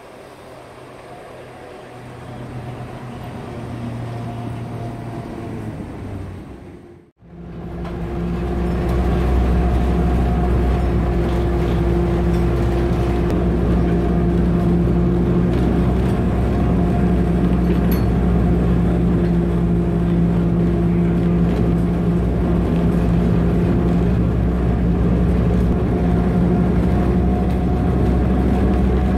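Electric rack-railway car of Genoa's Granarolo line. For the first few seconds it grows louder as it approaches along the track. About seven seconds in there is an abrupt cut, and from then on the car's motor and rack gearing give a loud, steady drone with a constant hum, heard from on board as it climbs.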